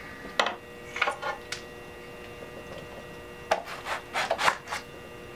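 Hands scraping and smoothing a disc of clay on a potter's wheel in short strokes: a few near the start, then a quicker run of them in the second half. A faint steady hum runs underneath.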